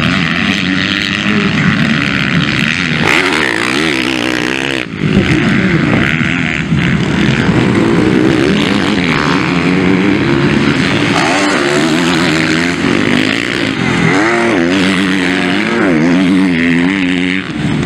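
Motocross bikes' engines revving hard and falling back again and again as they race around a dirt track, the pitch rising and dropping with the throttle.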